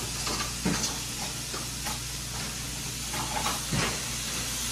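Diced bacon sizzling steadily in a frying pan as its fat starts to render, with a few soft knocks from handling at the stove.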